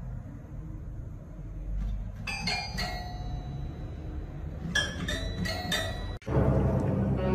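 Toy piano played by a cat's paw: single bright, bell-like notes with a short ring. Three notes come about two seconds in, then a cluster of five or so near the end. In the last second, louder music takes over.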